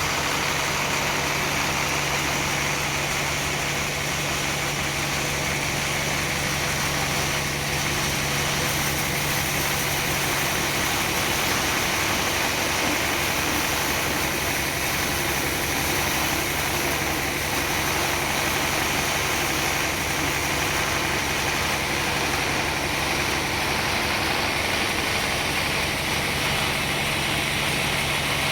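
Sawmill machinery running steadily: a constant low engine hum with a hiss over it, unchanging throughout.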